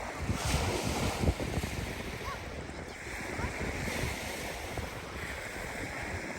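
Wind buffeting the microphone in uneven low gusts over a steady rushing wash of Lake Michigan waves on the shore.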